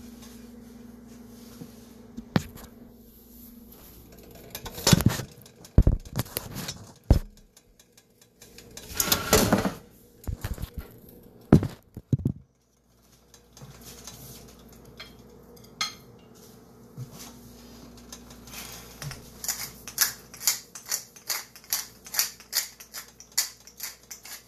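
Kitchen handling noises: scattered knocks and clatter of cookware, with a longer rattling scrape about nine seconds in, then a quick run of sharp clicks, two or three a second, through the last several seconds.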